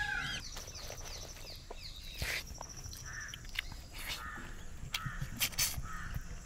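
Outdoor ambience of birds calling. A warbling call ends just after the start, then short calls and a high, rapid trill come and go, with a few sharp clicks.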